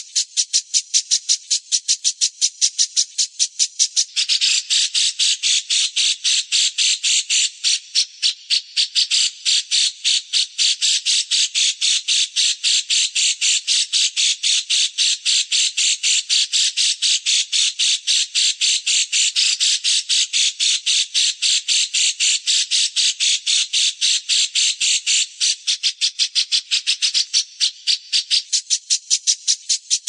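A small songbird gives a fast, evenly repeated run of sharp chirps, about three to four a second, in a 'fighter' chirping track of the kind played to train cage songbirds. The chirping fills out and grows louder about four seconds in, then thins again near the end.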